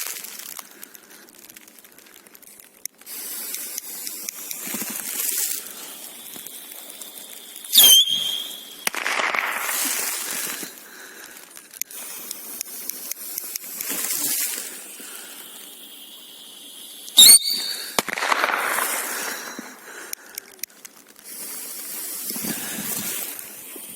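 Joker Fireworks 'Svist-Khlop' whistling mini-rockets being launched: two loud, shrill whistles, about 8 and 17 seconds in, each sweeping down in pitch and settling into a held high tone, with fainter whistling and hiss between.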